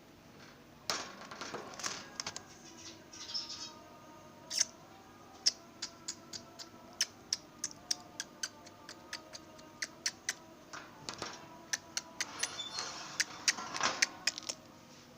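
Caged lovebirds: a run of sharp clicks and taps, about two a second, with bursts of high chattering about a second in and again near the end.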